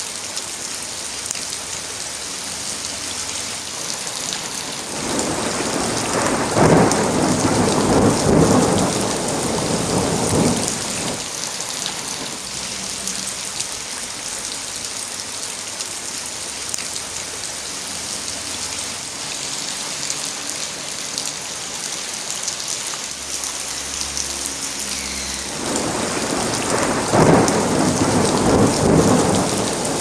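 Steady rainfall hissing, with two long rolls of thunder, one swelling about five seconds in and lasting several seconds, the other starting near the end.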